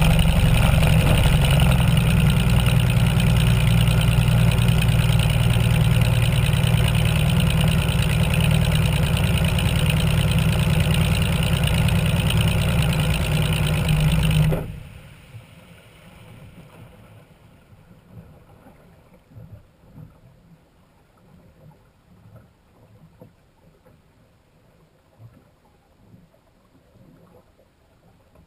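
Racing hydroplane's engine running steadily at speed, then cut off abruptly about halfway through. After that only faint, irregular water sounds are left as the boat coasts to a stop.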